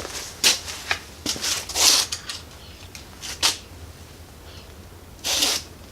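Hand work on a small ATV engine on the bench: a scatter of irregular clicks and knocks, with two short rasps about two seconds in and near the end.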